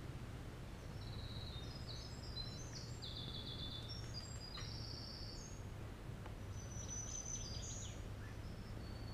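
Winter wren singing a long, rapid song of high trills and warbles that starts about a second in and runs for about four seconds, with a second short burst of high song near the end. A steady low rumble of background noise lies underneath.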